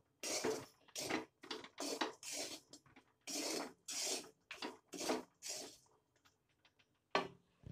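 A spatula scraping and stirring dry-roasted chilli chicken around a pan in quick strokes, about two a second, mixing in garam masala as the roast finishes. The stirring stops about 6 s in, with one last stroke near the end.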